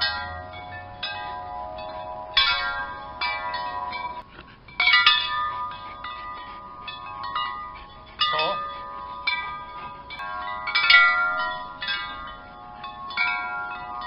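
A set of metal tubular wind chimes struck again and again by a Newfoundland dog playing with them, roughly once a second. Each strike gives a cluster of ringing tones that hang on and overlap the next.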